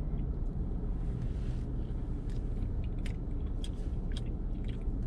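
A few light clicks and scrapes of a plastic fork working in a takeout container, over a steady low rumble in the truck cab.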